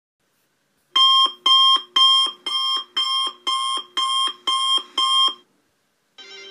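Digital alarm clock going off with a wake-up alarm: nine sharp electronic beeps, about two a second, starting about a second in.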